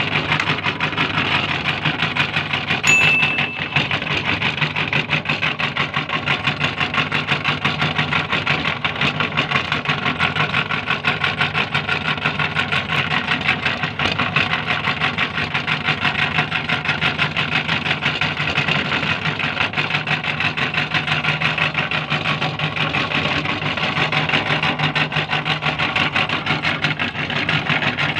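Electric meat grinder running steadily, its motor humming with a fast, even rattle. A brief high squeal about three seconds in.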